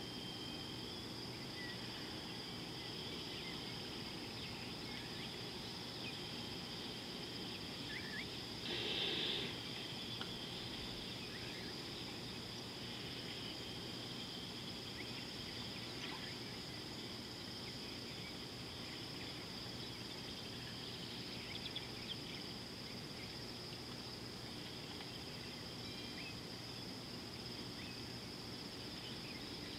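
Steady, high-pitched insect chorus, with a brief louder burst about nine seconds in.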